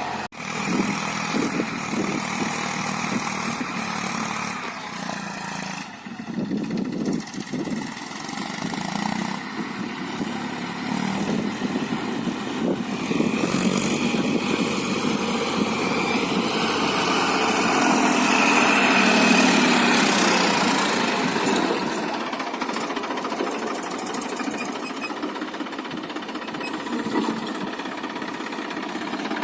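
Eicher 480 tractor's three-cylinder diesel engine running under load while pulling a double disc plough. It grows louder towards the middle, then eases off.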